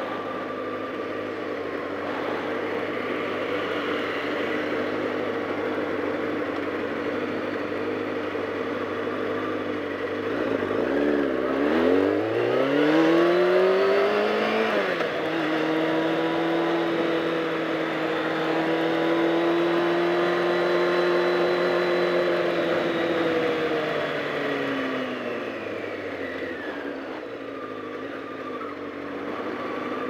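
1999 Honda CBR600 F4's inline-four engine idling, then revving up as the bike pulls away about ten seconds in, running steadily, and dropping back toward idle as it slows in the last few seconds.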